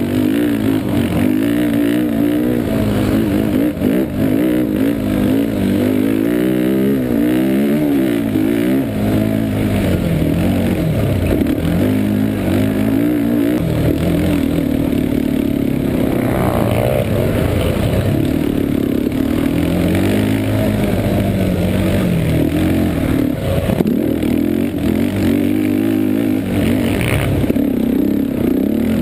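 Yamaha Warrior 350 ATV's single-cylinder four-stroke engine running hard under race load, its pitch rising and falling over and over with throttle and gear changes.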